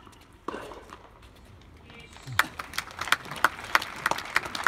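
A brief shout about half a second in, then scattered clapping from a small crowd of spectators starting about two seconds in, after the point is won.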